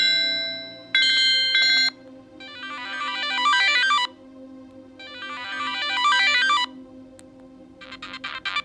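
Siemens AX75 mobile phone playing its built-in ringtones. A chiming tone ends about two seconds in. Then a short melody plays twice, each time swelling louder, and a fast pulsing ringtone starts near the end.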